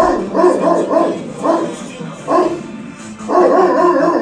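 A dog barking repeatedly in quick volleys, several barks a second, with a longer run of barks near the end. It is alarm barking at a stranger lingering nearby, guarding its place.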